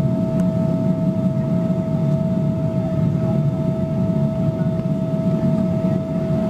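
Cabin sound of a Boeing 777-300ER taxiing, heard from a window seat over the wing: its GE90 engines at taxi idle, a low rumble with a steady whine over it.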